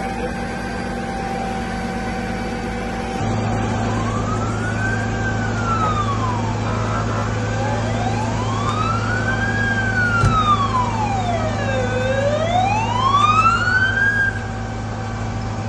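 Emergency vehicle siren wailing, its pitch sweeping slowly up and down about two and a half times before cutting off near the end, over a steady low hum.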